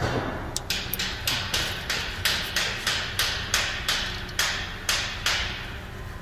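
Hammering: a quick, even run of about eighteen sharp blows, about four a second, that stops near the end.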